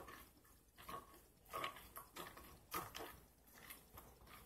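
Flarp noisy putty squeezed by hand in a plastic tub, giving several faint, short squelching noises at irregular intervals.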